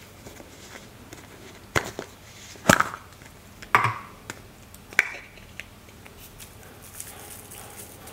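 A small plastic slime container being handled and opened: four sharp clicks and knocks of plastic, the second and third loudest. Near the end comes a faint hiss of loose glitter pouring out.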